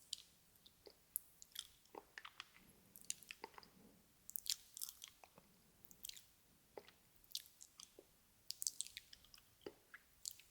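Close-miked ASMR mouth sounds: soft wet smacks and clicks of lips and tongue, irregular, several a second.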